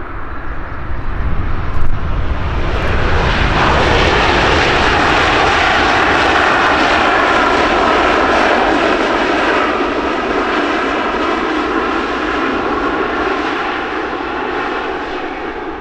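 Airliner engines passing close by: a low rumble that swells over the first few seconds into a loud, steady engine noise, then slowly fades away.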